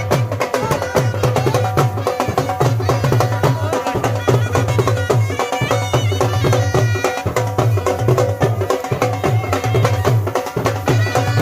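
Dhol drums beating a steady rhythm, about two to three strokes a second, under a melody played on the baja, a wind instrument: traditional folk music.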